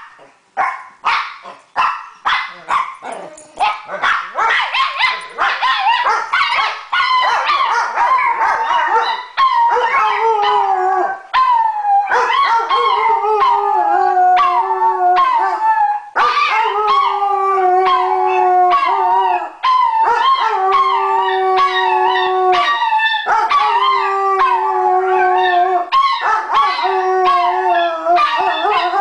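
A Weimaraner and a Chihuahua howling together. Quick sharp barks and yips for the first few seconds give way to long, wavering howls that slide in pitch, broken by short pauses every few seconds.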